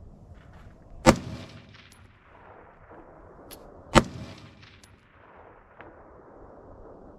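Two rifle shots from an AR-15, about three seconds apart, each followed by a long echo that fades slowly off the surrounding mountains.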